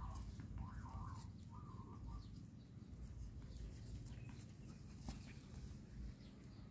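Puppies play-fighting and wrestling on paving: faint scuffling and low rumbling handling noise, with scattered light clicks. A faint high-pitched wavering call sounds over the first two seconds.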